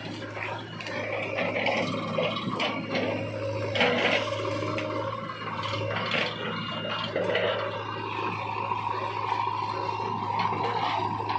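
Diesel engines running: a Sonalika DI 42 tractor manoeuvring its trailer and a JCB 3DX backhoe loader, a steady low hum under a rough rushing noise with a few knocks. A steady higher whine joins about eight seconds in.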